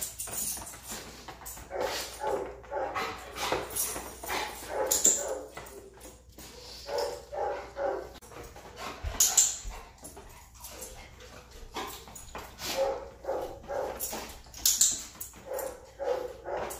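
A dog barking repeatedly, in runs of several quick barks a few seconds apart.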